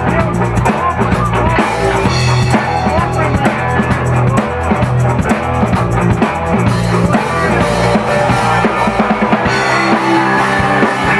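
Rock band playing live, with a drum kit keeping a steady beat under guitar.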